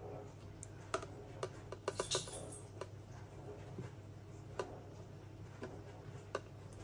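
Metal tweezers tapping and clicking against a plastic deli cup and its paper-towel lining: a handful of separate light ticks, with a short rustle of paper about two seconds in.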